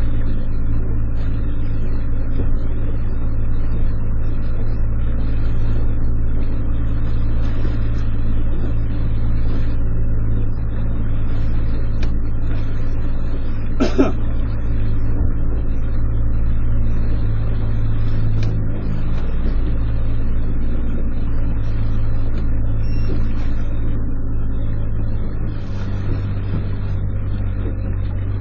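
A small fishing boat's engine running steadily, with a single sharp knock about halfway through; the engine note drops a little near the end.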